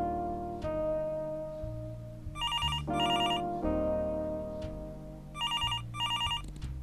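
Desk telephone ringing with a trilling double ring: two pairs of short bursts, a few seconds apart. Slow background music of sustained notes plays under it.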